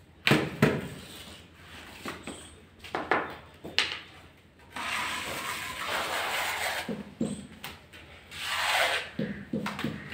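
A few sharp knocks as a floor tile is set in place. Then a steel trowel scrapes at length through wet tile adhesive on a concrete floor, again briefly near the end, with a few short knocks.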